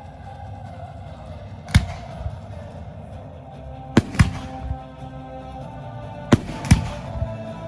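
Aerial fireworks bursting: five sharp bangs, two of them in quick pairs, some followed by a few smaller crackles, with music playing underneath.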